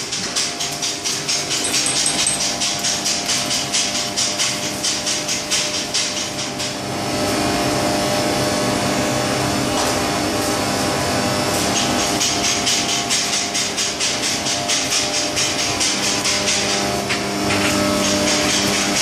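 Welding-shop noise from electric welding booths: a steady machine hum under a rapid, even clatter of about four or five beats a second. In the middle this gives way for several seconds to an even hiss.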